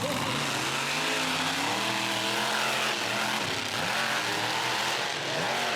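Large engine revving up and falling back several times over a steady rushing noise.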